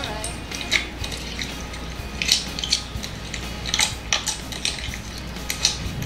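Pink slime being kneaded and stretched by hand, giving off irregular sticky clicks and pops.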